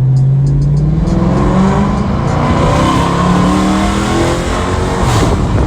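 Dodge Charger with a mid-muffler delete, its exhaust loud as the engine revs, the pitch rising and falling several times.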